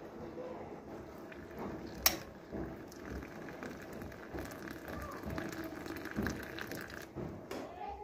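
Hot water poured from an electric kettle into a glass teapot, splashing through a steel infuser basket onto fresh lemon balm leaves. A single sharp click about two seconds in.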